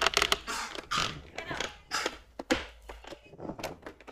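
Hard plastic panels of a folding storage box clicking, knocking and scraping as the back panel is fitted into place, in a string of short irregular clicks and rubs.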